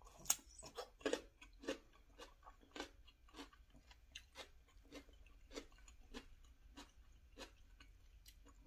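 A person chewing food close to the microphone, in a run of sharp crunching clicks. The clicks are loudest in the first two seconds, then settle into a steady rhythm of about one and a half chews a second.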